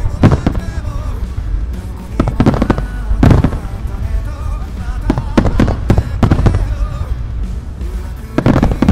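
Fireworks display: aerial shells and star mines bursting in a rapid string of booms, several close together at times, over pop music playing.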